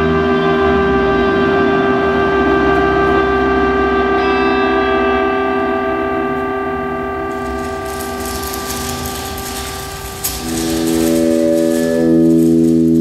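Electroacoustic drone music: a held chord of several steady tones with effects on it. A hissing noise spreads over the top from about seven seconds in. Just after ten seconds the sound dips briefly, then a new, louder chord sets in.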